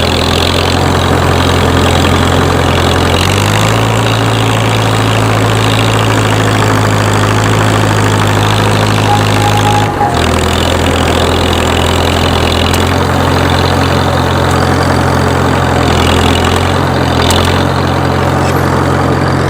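Farmall H tractor's four-cylinder gasoline engine running steadily, speeding up about three seconds in and dropping back about ten seconds in. It carries a knock that is hard to hear over the motor, which the owner is trying to trace to a tappet, a worn camshaft lobe or something deeper in the engine.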